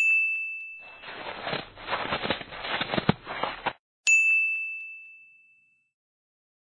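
A clear high chime dings and rings out. Then a noisy, crackly sound effect with scattered clicks plays for about three seconds, and the chime dings once more, marking the sample as a listening quiz.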